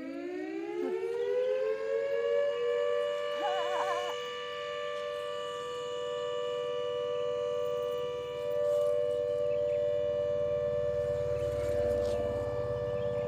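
The Pertamina facility's siren winds up, rising in pitch over the first couple of seconds, then holds one steady wailing chord. It is the daily 6 a.m. time signal, not a danger alarm.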